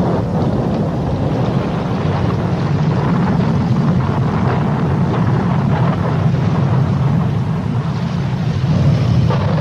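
Storm wind and sea aboard a ship: a loud, steady low rumble with wind buffeting the microphone.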